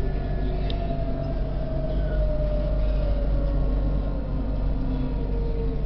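Tram running on its rails, heard from inside the front cab: a steady low rumble with a thin motor whine sliding slowly down in pitch as the tram slows, and a light click about a second in.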